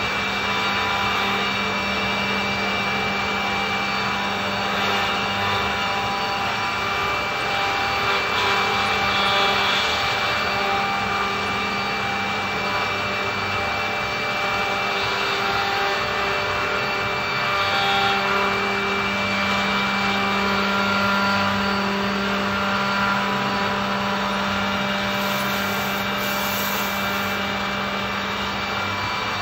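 Andreoni Standard 12 multi-spindle copy-milling machine (pantograph router) running, its cutters milling wooden blocks to a template. It makes a steady whine of several held tones over a constant rushing noise.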